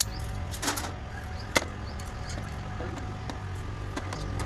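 A car engine idling with a steady low rumble. A sharp click or knock sounds about a second and a half in, with a smaller one before it.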